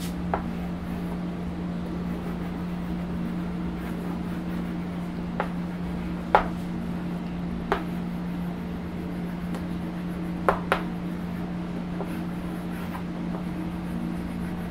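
Steady low electrical hum, with a handful of short, sharp taps or clicks scattered irregularly through it.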